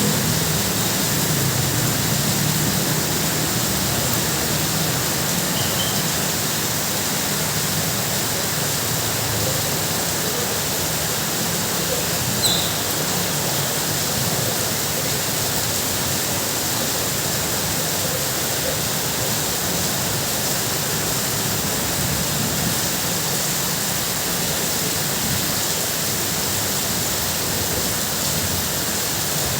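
Heavy rain falling steadily on a tin roof, an even hiss and patter throughout. A low rumble fades away over the first few seconds, and a single short tick sounds about twelve seconds in.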